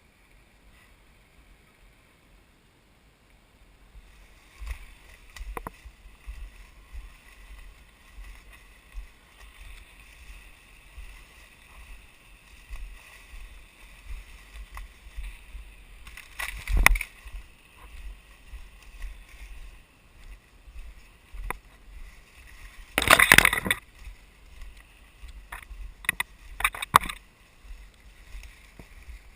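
Footsteps and body brushing through dry leaf litter and forest undergrowth: irregular rustling and crunching, with louder crackles of brush and twigs about 17 and 23 seconds in, and again near the end.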